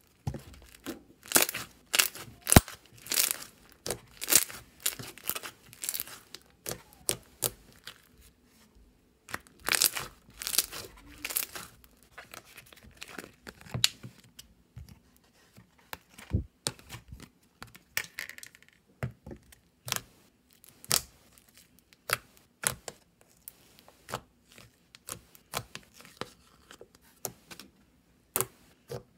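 Slime being squished and stretched by hand, making irregular crackling and popping, thickest in the first few seconds and again around ten seconds in.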